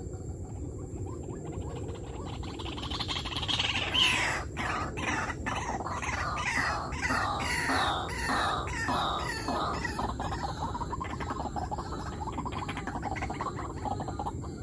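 White-breasted waterhen calling: a run of repeated call notes, about two a second, that builds up about three seconds in and trails off after about ten seconds, over a steady low background rumble.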